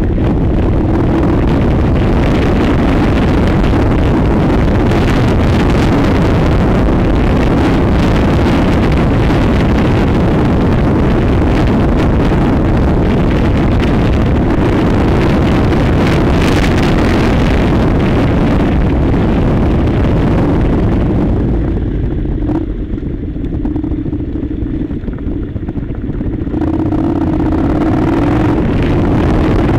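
Honda NC700's 670 cc parallel-twin engine running steadily as the bike is ridden along a gravel track, under heavy wind buffeting on the microphone. For a few seconds about three-quarters of the way through, the wind noise drops away and the engine note stands out more clearly.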